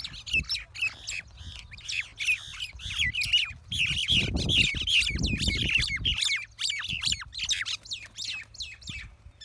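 Two fighting birds squawking and chirping in rapid, harsh calls, one after another without pause. About four to six seconds in, a burst of low rumbling noise sounds under the calls.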